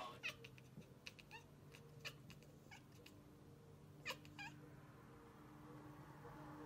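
Domestic cat giving a string of short, quiet chirps and clicks, irregularly spaced, with a louder pair about four seconds in.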